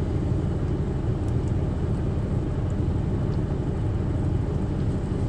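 Truck diesel engine idling with a steady low rumble.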